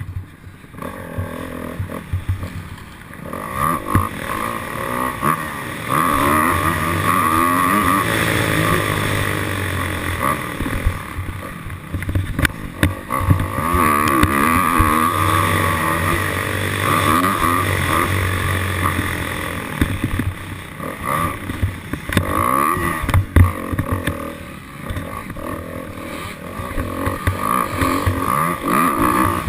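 Dirt bike engine revving up and falling back again and again, its pitch climbing and dropping as the rider works the throttle and gears. A steady rushing noise runs underneath.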